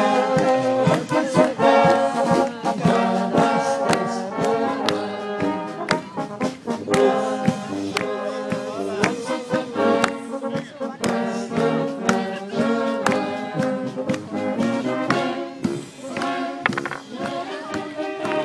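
Live brass band playing: trumpets and tubas carrying the tune over a steady beat of drums and cymbals.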